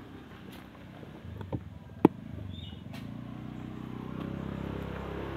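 A vehicle engine running with a low, steady drone that grows louder through the second half. Two sharp knocks come about one and a half and two seconds in, the second much louder, as the loaded pickup is handled at its tailgate.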